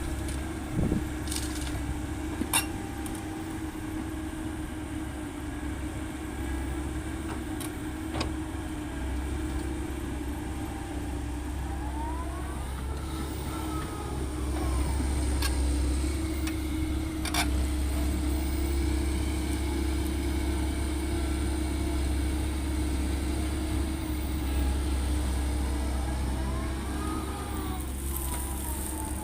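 Heavy diesel machinery running steadily with a low engine drone, broken by a few sharp knocks. A whine rises and falls twice.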